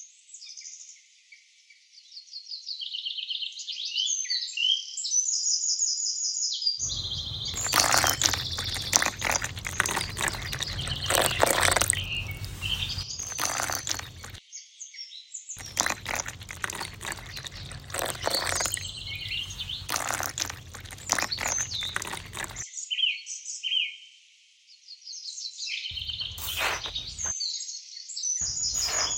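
Small birds chirping and tweeting continuously, with three long stretches of dense clicking and scraping noise, starting about seven, fifteen and twenty-six seconds in.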